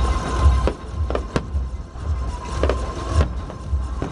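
Amplified show music with a steady bass beat, broken by sharp bangs and crackles of aerial fireworks bursting at irregular moments.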